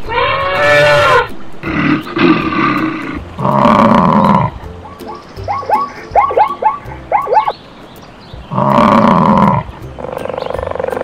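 A string of wild animal calls: four loud calls about a second long each, with a quick run of short rising-and-falling cries in the middle.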